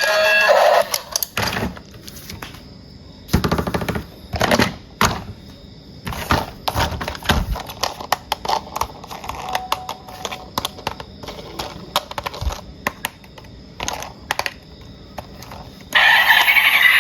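Plastic toys and packaging being handled: irregular clicks, knocks and rustles, with a few louder knocks around four to five seconds in. Background music stops just after the start and comes back near the end.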